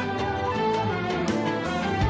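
Instrumental interlude of a Turkish song: violins playing a held melody over a sustained bass accompaniment.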